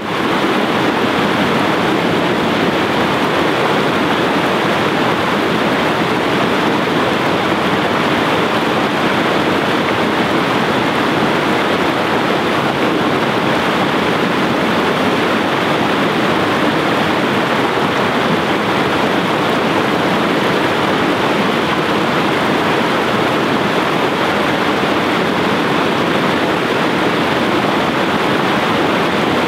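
River water pouring over a small rocky cascade into white-water rapids: a loud, steady rush of water.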